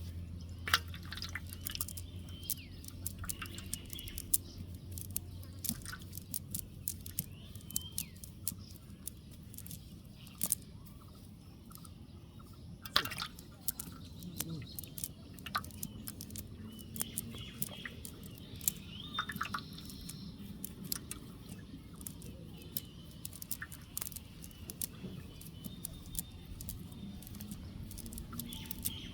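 Water dripping and many small scattered taps and clicks, with birds chirping now and then. A low hum fades out after several seconds.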